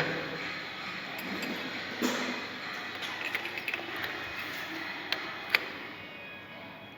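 Steady lathe-shop mechanical noise, with a few sharp metallic clicks: one about two seconds in and two more a little after five seconds.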